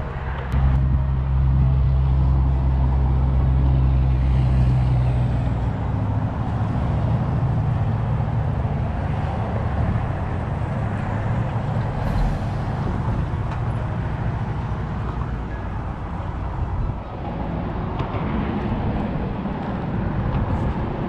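Road traffic: a motor vehicle's engine hum, strongest and steadiest for the first few seconds and then easing into a continuing rumble, with a single sharp click about twelve seconds in.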